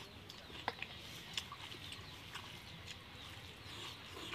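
Faint bird chirps over a quiet rural background, with a few soft clicks.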